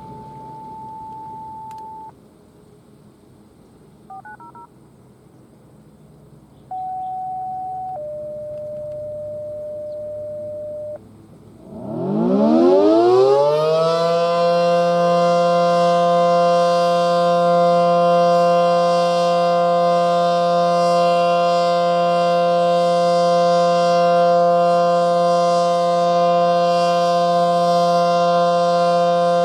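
A few long single-pitch radio tones, then an ACA Allertor 125 tornado siren (9/12-port rotor) winding up about 12 seconds in to a loud, steady, dissonant full-alert chord. The chord holds an even level with no rising and falling sweep, because the siren's rotation is not working.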